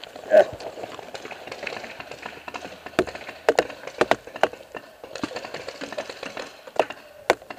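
Paintball gunfire: scattered sharp pops and cracks at uneven intervals, several in quick succession around the middle, over a faint rustle. A loud knock just under half a second in.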